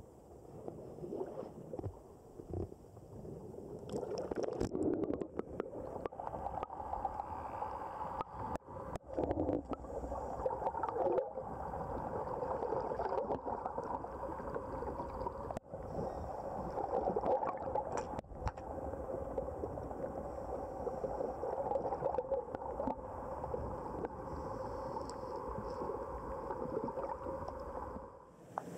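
Muffled water gurgling and sloshing heard through a camera held underwater, growing louder about four seconds in, with scattered small clicks.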